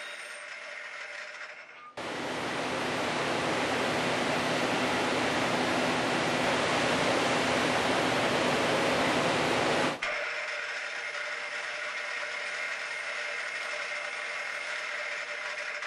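CNC lathe thread-milling stainless steel with a 14-flute shell mill spinning at 4,000 rpm. A steady machine hum gives way about two seconds in to a loud, even rushing hiss that lasts about eight seconds and cuts off suddenly, then the hum returns.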